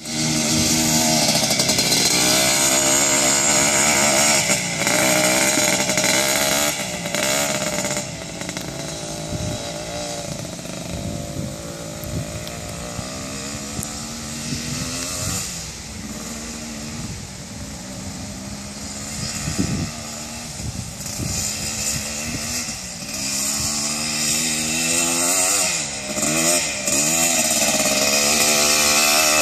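Honda ATC250R three-wheeler's two-stroke single-cylinder engine being ridden, its revs rising and falling over and over. It is loudest at the start and again near the end, when the trike is close, and fainter in the middle.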